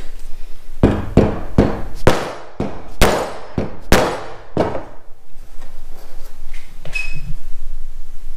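Plastic-headed mallet striking, about eight sharp blows over roughly four seconds, driving wooden dowel pegs into a table's breadboard end; the blows stop about halfway through.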